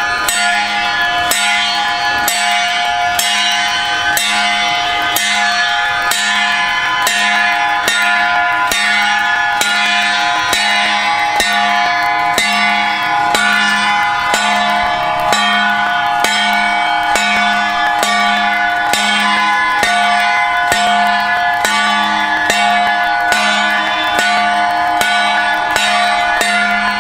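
Small handheld brass procession gong struck at a steady walking beat, a little more than once a second, ringing between strikes.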